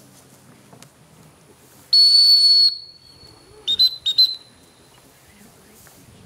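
Dog-training whistle: one long blast about two seconds in, then a quick run of short toots around four seconds in. These are typical retriever handling signals, a long blast to stop the dog and sit it, and short toots to call it in.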